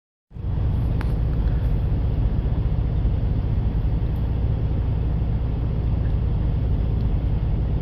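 Steady low drone of a semi-truck's engine heard inside the cab.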